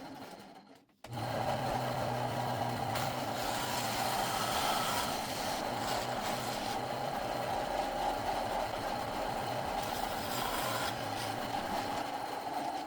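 Bandsaw running steadily while cutting out a curved wooden rocker. The whir starts abruptly about a second in and fades near the end.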